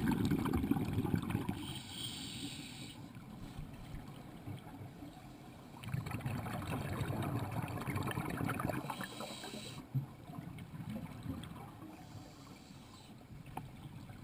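Scuba diver breathing through a regulator, heard through an underwater camera housing: a rush of exhaled bubbles, then a short hissing inhale about two seconds in. A second burst of bubbles starts about six seconds in, followed by another hiss.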